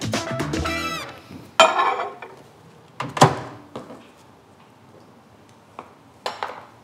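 Cups and crockery clinking on a counter as coffee is made: a few sharp, ringing clinks, then lighter clicks near the end. Background music fades out in the first second.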